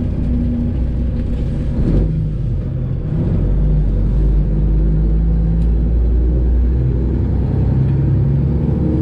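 Detroit Diesel 12.7-litre Series 60 inline-six of a semi truck running under way, heard from inside the cab. The sound dips briefly about two seconds in, then runs louder and steadier.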